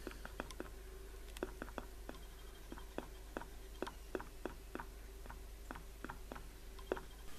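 A faint, irregular series of small sharp clicks and ticks, about three a second, over a steady low hum.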